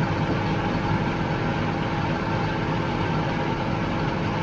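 Heavy diesel farm vehicle engine running steadily, heard from inside the cab.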